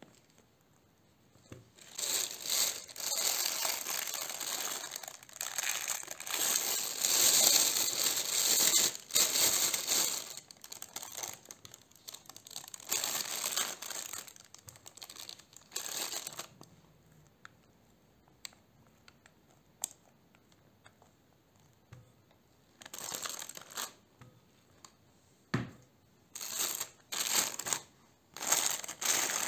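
Plastic piping bag crinkling as it is handled and filled with whipped cream: long stretches of rustling through the first half, then a few short crinkles and a single knock near the end.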